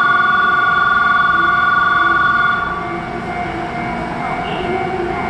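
Station platform departure bell ringing as a steady, slightly warbling electronic tone, which cuts off about two and a half seconds in. A lower steady hum from the standing train carries on.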